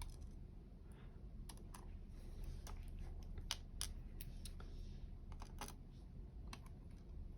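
Faint, irregular small clicks and taps of tiny lock pins and tools being handled while a dimple lock is taken apart, a dozen or so at uneven spacing.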